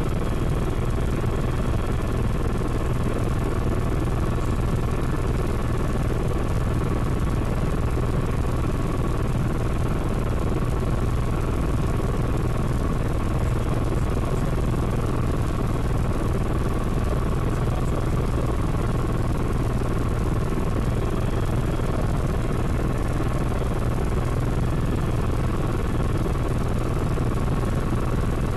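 Helicopter in flight heard from inside its cabin: a steady low rotor and engine drone with a faint constant whine above it.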